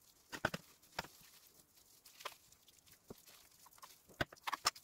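Kitchen knife clicking and tapping against a plastic cutting board while trimming fat and sinew from boiled beef: scattered sharp clicks, with several in quicker succession near the end.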